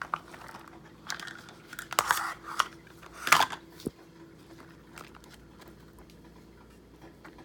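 Crinkling and rustling of shredded mozzarella cheese being added to a pizza crust, in three short bursts over the first three and a half seconds, then quieter handling.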